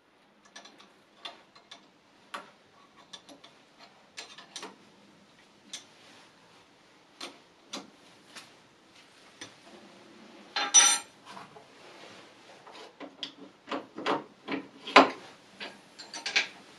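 Scattered metal clicks and clinks of a spanner and steel toolpost parts being worked on a lathe's compound slide, as the toolpost is unbolted and the original quick-change toolpost is fitted back on. A louder, ringing metal clank comes about eleven seconds in, and another sharp knock near fifteen seconds.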